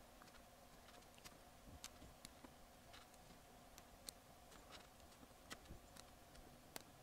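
Faint, scattered small clicks of tiny tactile push-button switches being pressed by hand into the holes of a circuit board, at an uneven pace of a click every half second or so.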